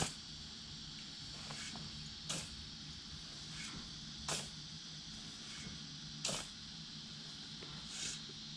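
Steel shovel blade stabbing into a pile of loose, dry sandy dirt to fill in a pit, five sharp scrapes about two seconds apart. A steady high insect drone runs behind it.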